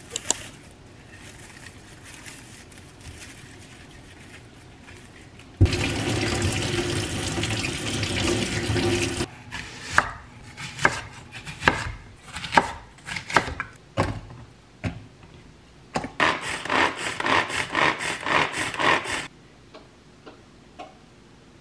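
Kitchen prep sounds: a net produce bag rustling, then a tap running for about three seconds. Next comes a knife cutting an onion, with a series of knocks on a wooden cutting board about once a second, and then a food chopper whirring for about three seconds as it minces the onion.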